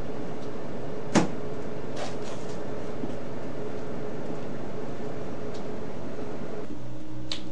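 A single sharp clack about a second in, as food containers and a take-out box are handled on a counter, followed by a few fainter knocks, over a steady hum.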